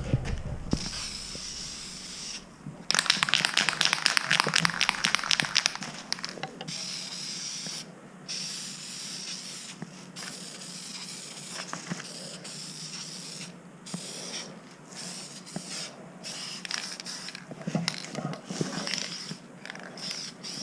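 Aerosol spray-paint can spraying in a series of hissing bursts with short pauses between them, the longest and loudest burst about three seconds in.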